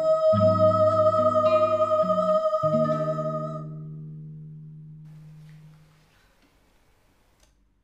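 A woman's singing voice holds one long final note over instrumental accompaniment chords, fading out about three and a half seconds in; the last chord rings on and dies away by about six seconds in, closing the song.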